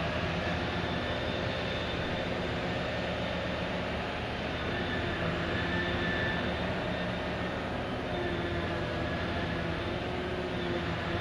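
Steady drone of a dredger's heavy diesel machinery working, with several steady tones over a rumble that shift slightly in pitch now and then.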